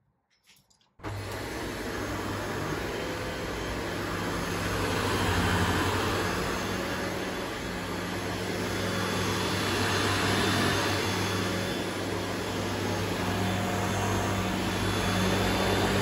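Shark DuoClean Powered Lift-Away upright vacuum cleaner switching on about a second in and then running steadily as it is pushed over carpet, its sound swelling and easing every few seconds.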